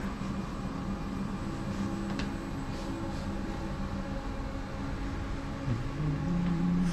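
Steady hum inside a Siemens VAL 208 driverless light-rail car standing at the platform, with a few faint clicks. Near the end a low tone slides up in pitch and grows louder.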